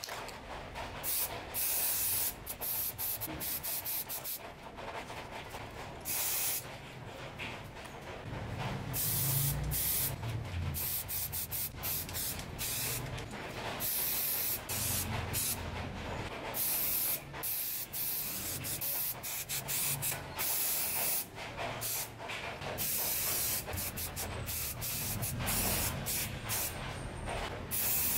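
Aerosol spray-paint can hissing in many short bursts, started and stopped again and again, as grey paint is sprayed onto metal parts.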